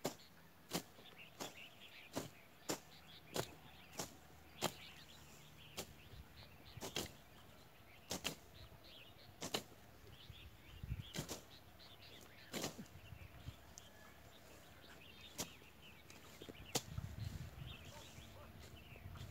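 Hand-tool blades slashing through grass and weeds, each stroke a sharp swish. The strokes come about three every two seconds at first, then more scattered, with birds chirping in the background.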